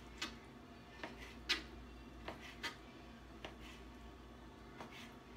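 Kitchen knife cutting raw chicken breast into chunks on a plastic cutting board: faint, irregular taps as the blade meets the board, the loudest about one and a half seconds in.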